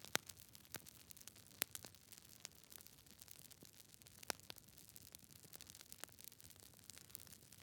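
Wood fire crackling: irregular sharp pops and ticks over a soft low hiss, the loudest pops just after the start, about a second and a half in, and a little past four seconds.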